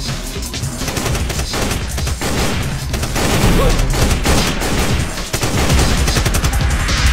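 Rapid, overlapping automatic rifle fire from several guns in a firefight, a dense run of shots that grows heavier about three seconds in.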